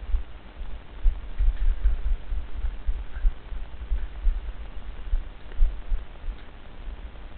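Low, uneven rumbling and thumping on the microphone, surging irregularly, with a faint rustle above it.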